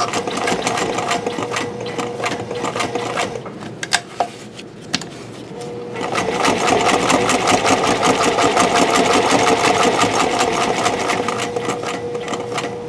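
White 1899 domestic all-metal mechanical sewing machine stitching through upholstery-weight leather. It runs a rapid burst of stitches, stops for about two seconds with a few clicks, then sews again in a longer, louder run.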